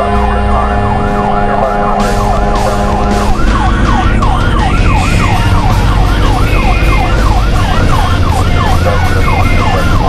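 Fire apparatus electronic siren on a fast yelp, sweeping up and down about three times a second, over the low rumble of the truck's engine. A steady held horn note sounds with it and stops about three seconds in.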